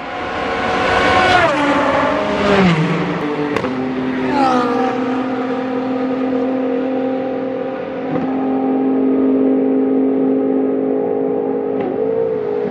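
Two racing cars passing at speed, one of them a Ligier JS P4 sports prototype with its Ford 3.7-litre V6; the engine pitch drops sharply as each goes by, about one and a half and four seconds in. After that comes a steady high engine note as they run on down the straight.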